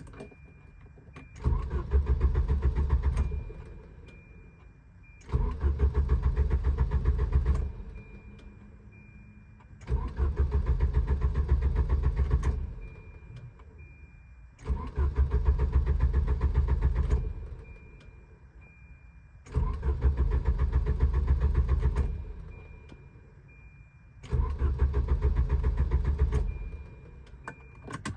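Volvo 740 engine being cranked by its starter six times in a row, each try lasting two to three seconds with a rapid even chugging rhythm, and never catching: a crank/no-start fault. A faint steady high tone is heard in the pauses between tries.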